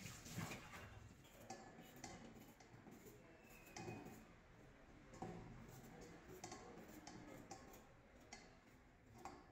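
A tap running into a steel sink for a moment at the start, then faint, irregular ticks and scrapes of a hand vegetable peeler stroking the skin off a vegetable over a steel bowl.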